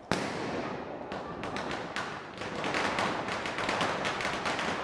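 Diwali firecrackers: a sharp bang just after the start, then from about a second in a fast, dense run of small pops, like a string of crackers going off.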